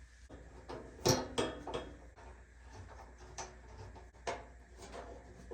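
Scattered light clicks and clinks of small screws and a small hand tool as the metal foot plate is screwed onto a kerosene heater, loudest about a second in.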